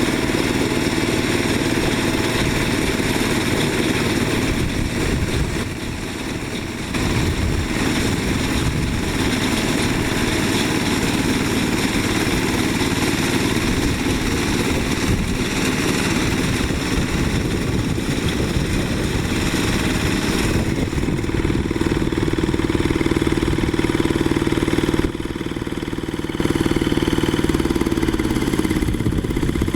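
Small diesel engine of a Quick H-140R rice harvester running steadily under work, its level dipping briefly about six seconds in and again about twenty-five seconds in.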